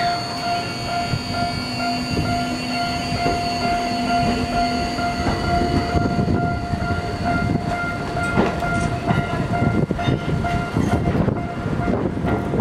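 Japanese level-crossing alarm ringing steadily with its repeating electronic bell while a Ginza Line subway train rumbles across, its wheels clacking over the rail joints, more busily in the second half.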